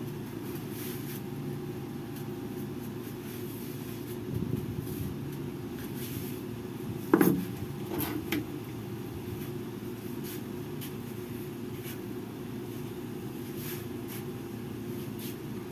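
Steady low hum of a window air conditioner running. A knock about seven seconds in is followed by two softer knocks about a second later, with a few faint light clicks scattered throughout.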